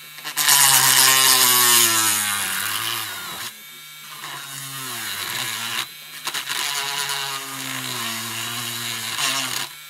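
Pen-style mini rotary tool running with a larger bit grinding into a plastic model part: a buzzing motor whine under a hiss of cutting, its pitch sagging as the bit bites. There are two loud stretches of cutting, with the motor running more quietly between them, about four to six seconds in.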